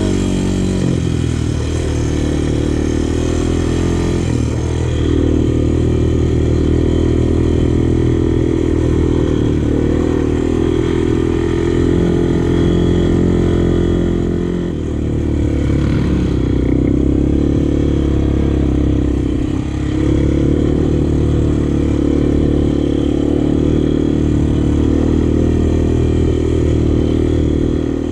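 Sport quad's single-cylinder engine running steadily under throttle on a trail ride. The throttle eases off briefly about halfway through and again a few seconds later.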